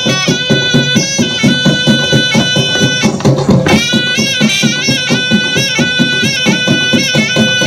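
Traditional Odisha folk dance music: a reedy wind instrument plays a bending, ornamented melody over fast, steady drumming. The wind instrument drops out briefly about three seconds in while the drums carry on.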